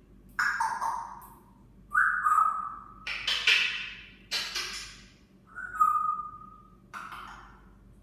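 African grey parrot calling in a string of about seven sounds: clear held whistles mixed with harsher, noisier calls, each starting sharply and fading away.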